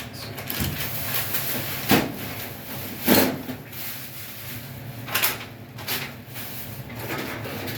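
Handling noises from working on a dryer vent hose and its fittings: a few separate clunks and scrapes, the loudest about two and three seconds in, over a steady low background hum.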